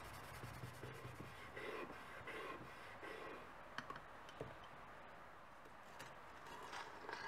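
Faint rubbing strokes, about two a second, as a gloved hand wipes the carbide lantern's metal body, then a few small metallic clicks and a short scrape as a screwdriver works at the tabs around the reflector dish.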